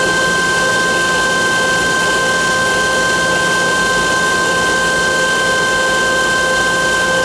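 Johnford SL650 CNC turning center running, a steady mechanical hiss with several high, constant whines over it that do not change.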